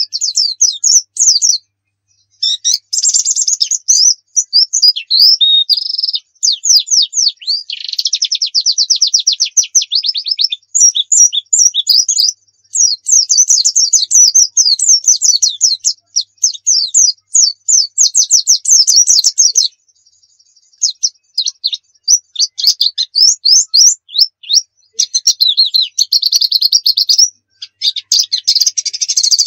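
A pleci dakun (white-eye) singing a long, fast song of rapid, high chirps and quick trills, in runs of several seconds broken by brief pauses. This is the vigorous 'gacor' song with many varied phrases that keepers play as a tutor recording for other white-eyes.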